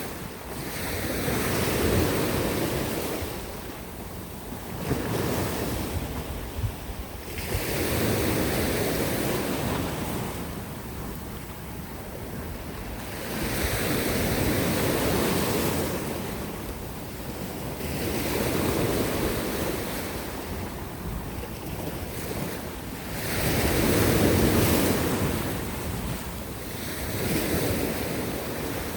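Mediterranean sea waves breaking on the shore and washing back, in swells that rise and fall about every four seconds, the loudest about three quarters of the way through. Wind buffets the microphone.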